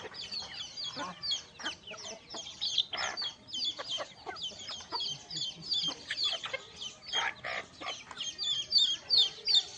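A flock of desi chickens clucking and cheeping, a dense stream of short, high, overlapping chirps with a few louder, lower clucks among them.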